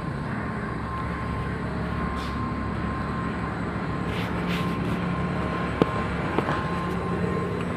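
Handheld butane canister torch burning with a steady roar while its flame heats the end of an orange PVC pipe to soften it. A couple of sharp clicks come about six seconds in.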